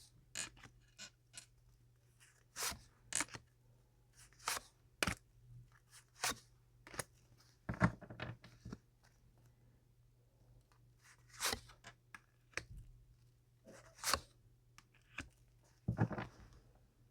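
Tarot cards being handled and laid out on a table: irregular short snaps, flicks and scrapes of card stock, with two soft thumps, one near the middle and one near the end.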